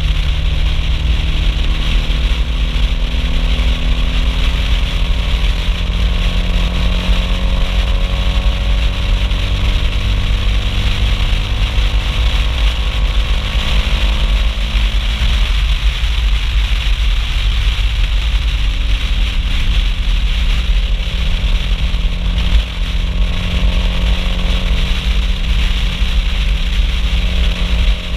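Mitsubishi Lancer Evolution IV's turbocharged four-cylinder engine and exhaust while driving, loud, its note rising slowly, dropping sharply about halfway through and then climbing again, over a steady wind rumble on the outside-mounted microphone.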